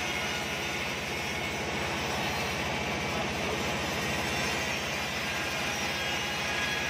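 Band sawmill running and cutting lengthwise through an acacia log: a steady hissing saw noise over the machinery's drone, with a fast, even low pulse underneath.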